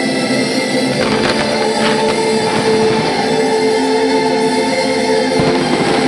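Music soundtrack with sustained, held chords and tones.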